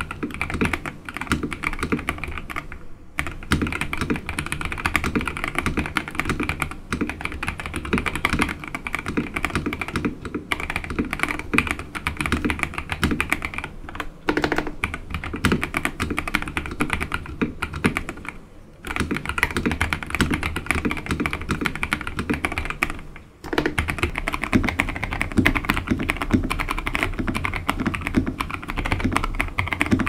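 Fast, continuous typing on a Royal Kludge RK100 100-key keyboard with Wuque Studio Morandi linear switches and Aifei Shoko ABS double-shot Cherry-profile keycaps, with a few brief pauses. About 23 seconds in there is a short gap, then the typing continues with a deeper sound, including the board fitted with Polar Day PBT dye-sub keycaps, tape-modded on the large keys.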